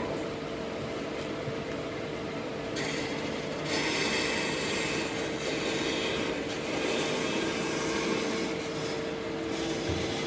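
Abrasive scraping on wood, like sanding or rasping, over a steady machine hum. The scraping grows louder about three seconds in and again about four seconds in.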